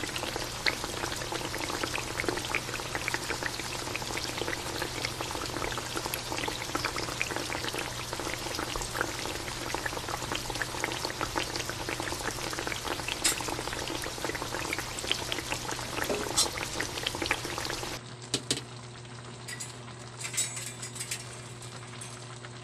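Pot of fish stew (pinangat na galunggong) boiling hard: a steady bubbling with many small crackles and a low hum under it, turning quieter near the end.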